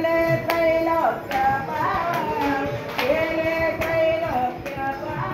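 Devotional hymn singing in a high voice, long held notes sliding between pitches, with sharp percussive beats keeping time about twice a second.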